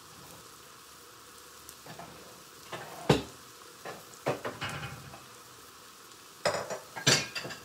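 Chopped onions sizzling softly in oil in a small pan over a gas flame, being sweated to soften them. Several sharp knocks and clatters of kitchenware cut across it, the loudest about three seconds in and a group near the end.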